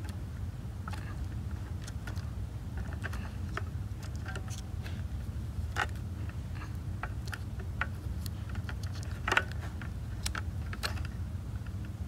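Small scattered clicks and scrapes of a 9V battery snap connector being worked off an old 9V battery's terminals by hand, with the loudest click about nine seconds in. Under it runs a low steady rumble of handling noise.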